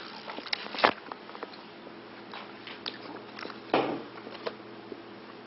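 A few sharp clicks and knocks over quiet room tone, the loudest about a second in, with a short noisy burst near four seconds in.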